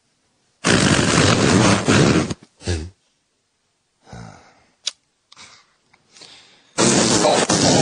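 Loud rasping cartoon hippo vocal noises: one long burst with a short one right after it, faint small sounds and a click in the pause, then another long burst near the end.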